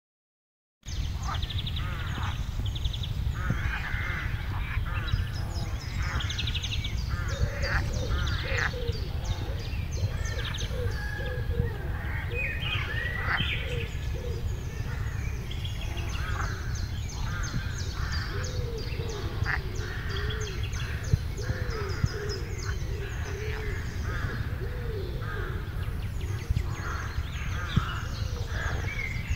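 Many birds chirping and calling at once, a dense chorus over a steady low rumble; it starts suddenly about a second in after silence.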